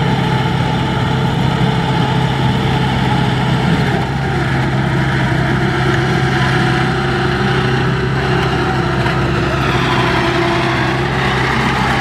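Kubota DC70 combine harvester's diesel engine running steadily as the machine travels on its rubber tracks: a loud, even low drone.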